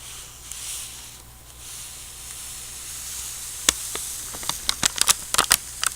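Close-miked ASMR trigger sounds: a soft, high hissy rustle, then from a little past halfway a quick, irregular run of sharp clicks and taps.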